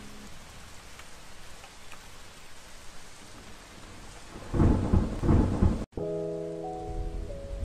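Steady rain hiss, with a rumble of thunder about four and a half seconds in. It cuts off sharply and gives way to music of sustained held chords.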